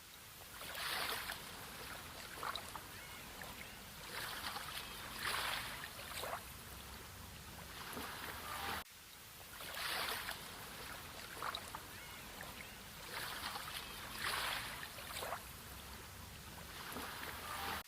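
Sea water washing in gentle waves that swell and fade every four to five seconds, with small splashes and trickles between them. The sound breaks off abruptly for a moment about halfway through.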